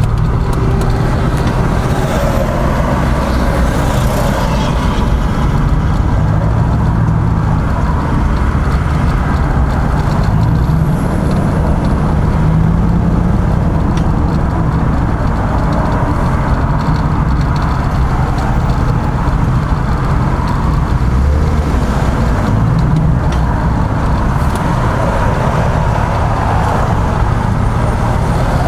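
Steady engine and road noise heard from inside a vehicle's cabin as it rolls slowly in stop-and-go highway traffic.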